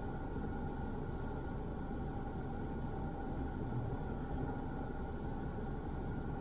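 Steady low rumble of idling traffic heard from inside a car stopped in a queue, with a faint steady hum.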